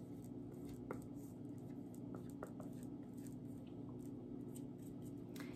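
Faint scratching and a few light taps of a marker writing on a handheld board, over a steady low hum.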